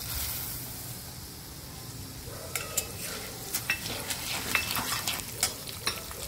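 Urad dal poured into hot oil in a kadai with frying chana dal, with a brief rush of sizzle as it goes in, for a pulihora tempering. From about two and a half seconds in, a metal spatula stirs the dals, with sharp clinks and scrapes against the pan over the steady frying.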